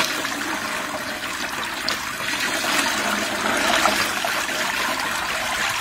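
Water poured from a bowl over raw pork pieces in a bamboo basket, running and splashing steadily through the meat and the weave into a basin below as hands rinse it.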